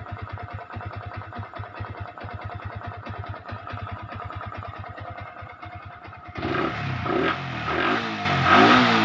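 Yamaha Vixion's 150 cc single-cylinder four-stroke engine idling evenly. About six seconds in it gets suddenly louder as the throttle is blipped, the revs rising and falling.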